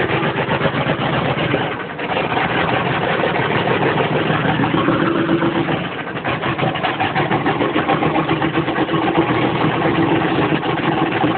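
GM 6.5-litre V8 diesel of a 1994 Chevy K2500 idling just after a cold start at about 20°F with no block heater, its rapid firing clatter running steadily, the level dipping briefly twice. The owner blames the poor running on bad injectors, fitted alongside a new injection pump.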